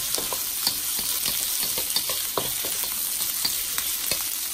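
Diced onion and green bell pepper with garlic and ginger sizzling in hot oil in a wok on a high flame, with a steady hiss. A wooden spatula stirs and scrapes the vegetables, giving frequent short clicks.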